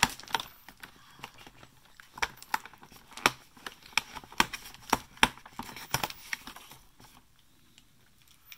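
Fingers picking at and tearing open a cardboard advent-calendar door: a string of sharp cardboard clicks, snaps and tearing, stopping about seven seconds in.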